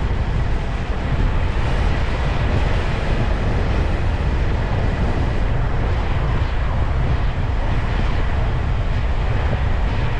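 Steady rush of wind buffeting the microphone, with the road and engine noise of a moving vehicle underneath.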